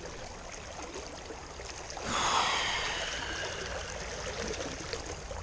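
Rushing water of a creek running high through a riffle, a steady rush. About two seconds in, a sudden louder noisy burst with thin high falling tones cuts in and fades over a second or so.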